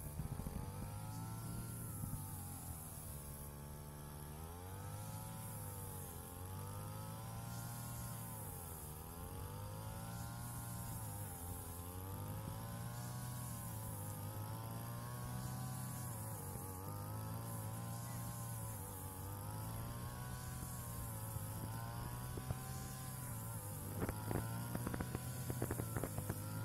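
Small two-stroke brush cutter engine running while cutting grass, its pitch sagging and recovering about every two seconds as the cutting head bites into the grass. A few faint clicks near the end.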